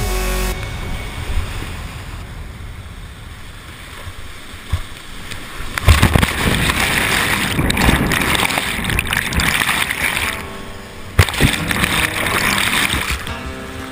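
Whitewater rushing and churning against a kayaker's helmet camera. It gets loud about six seconds in as the camera is buried in the foam, drops briefly about ten seconds in, then surges again.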